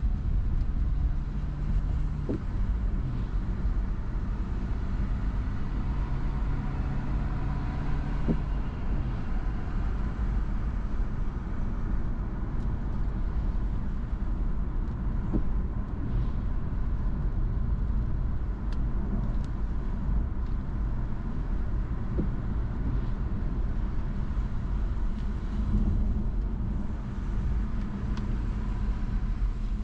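A car driving, with a steady low rumble of road and engine noise and a few faint ticks.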